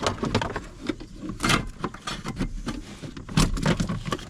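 Irregular knocks, clicks and scraping as a Chevy Silverado's transmission shift cable and its plastic clips are worked loose from under the dash by hand.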